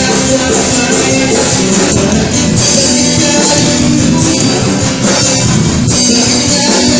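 Live rock band playing through amplifiers: electric and acoustic guitars, bass and drum kit, with a singer at the microphone.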